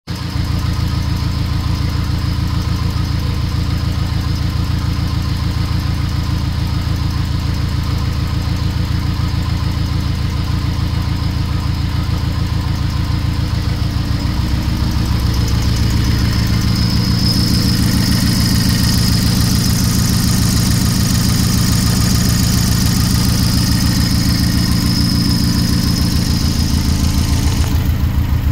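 Turbocharged Saturn Sky Redline engine idling steadily on six-month-old pump E85, just fired for the first time of the season. A thin, steady high whine rides over it: the turbo spinning. A hiss joins in over the second half and cuts off suddenly near the end.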